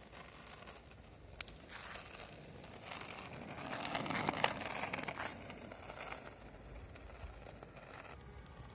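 Skateboard wheels rolling on asphalt. The rumble grows louder as the board passes close about halfway through, then fades as it rolls away, with a sharp click early on.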